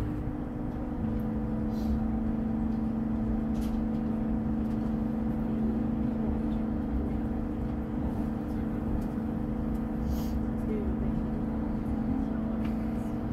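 SJ X2000 high-speed train running at speed, heard inside the carriage: a steady low rumble from the wheels on the track with a steady hum of several held tones, and a few faint ticks.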